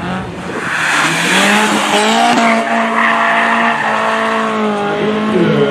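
BMW E30 318iS's four-cylinder engine held at a steady high note while the car slides sideways, tyres squealing on the tarmac. The revs climb in the first second or so and drop back near the end.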